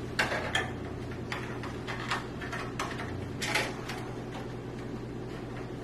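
Scattered clicks and rustles of a fan cable and its plug being handled and pushed through a PC case, about six over the first four seconds, over a steady low hum.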